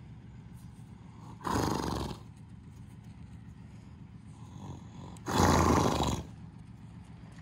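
A paint horse grazing close by blows out hard through its nostrils twice, about four seconds apart; each breath lasts under a second, and the second is louder.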